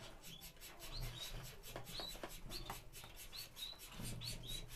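Small exotic finches chirping faintly: short, high hooked peeps, often in pairs, a few each second.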